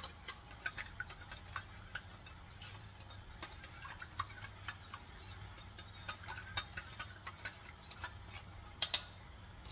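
Metal spoon scraping and clinking inside a tin can to get the last of the tomato sauce out: a run of irregular light clicks, with two louder knocks near the end.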